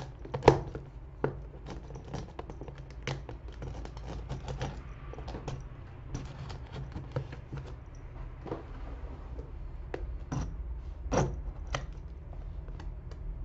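Packing tape on a cardboard box being picked, scratched and torn at with a small handheld tool: irregular clicks, scrapes and crackles of tape and cardboard, with a louder sharp crack about half a second in and another near the end.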